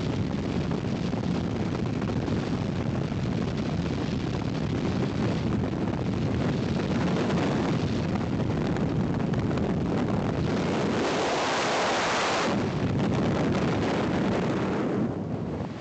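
Freefall wind rushing over the camera microphone, a steady roar; a louder, brighter hiss comes about eleven seconds in for a couple of seconds, and the rush eases near the end.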